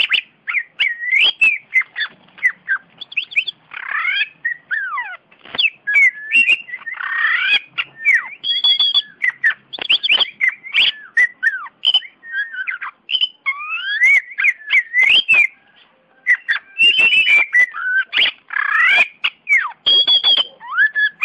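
Caged Oriental magpie-robin (kacer) singing a long, varied song of quick whistled notes that glide up and down, mixed with many sharp clicks, with a brief pause about three-quarters through.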